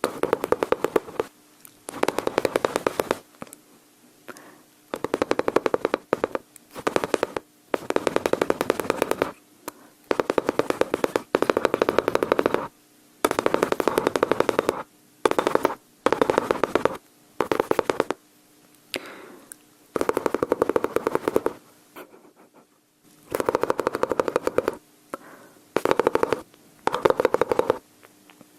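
A person imitating machine-gun fire with mouth sounds: repeated bursts of rapid clicking, each about a second long, with short pauses between.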